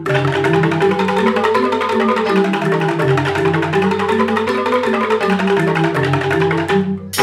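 Balinese joged bumbung gamelan: bamboo xylophones played with mallets in fast, dense interlocking patterns over a steady low tone. The music drops out for a moment near the end and comes back at once.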